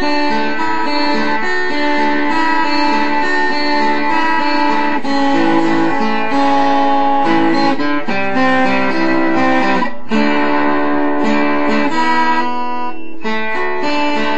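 A guitar being played, chords and held notes changing every second or so, with brief breaks about ten and thirteen seconds in.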